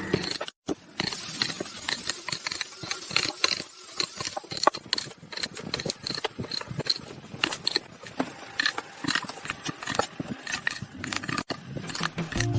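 A fast, irregular run of small clicks and knocks, like light handling and tapping.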